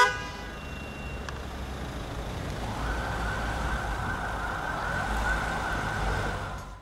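Car noise heard from inside the cabin: a steady rumble with no tune, growing louder about three seconds in, then fading out at the end.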